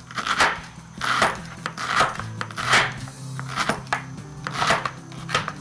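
Kitchen knife shredding cabbage on a wooden chopping board: a crisp cut through the leaves and a knock of the blade on the board, in uneven strokes about two a second.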